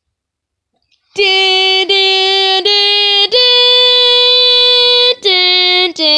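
A boy singing a loud, sustained fanfare-like tune: three short notes on about the same pitch, then a long higher held note, then a lower note near the end. It is a triumphant 'da-da-da-daaa' sung over pulling a GX card.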